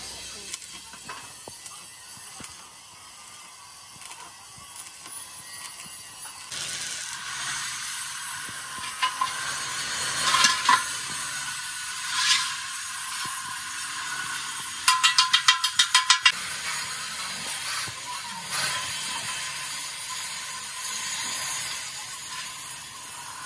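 Steel road-roller wheel rim being moved and turned by hand: scattered metal knocks and scrapes over a steady hiss, with a quick run of about eight sharp taps a little past the middle.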